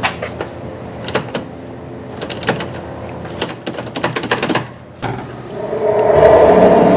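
Metal lever door handle being tried and jiggled: scattered sharp clicks and clacks that quicken into a rapid rattle, cutting off suddenly about five seconds in. Eerie music then swells up and is the loudest sound near the end.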